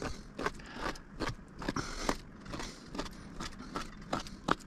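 Fillet knife scoring a sucker fillet, crunching through the small crisscrossing bones with each cut down to the skin: a string of short, crisp crunchy clicks, about two or three a second.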